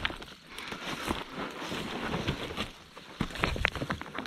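Footsteps crunching and scraping over loose rocks and dry grass, in irregular steps with small clicks of stone underfoot.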